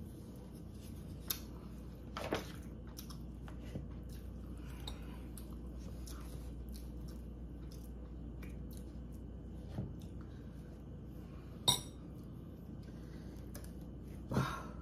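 Metal ice cream scoop scraping into a tub of hard-frozen ice cream, with a few sharp clinks of metal on the container, the loudest one late on.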